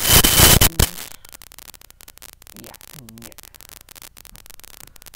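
Loud scratchy rustling right on the laptop microphone for just under a second, then a low steady hiss with a faint, brief murmur about three seconds in.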